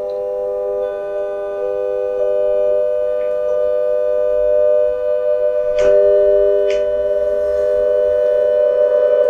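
Sine tones from a group of mobile phones sounding together as a major triad of 400, 500 and 600 Hz, held steady as a chord, with single tones dropping out and coming back in. Two sharp clicks about six and seven seconds in.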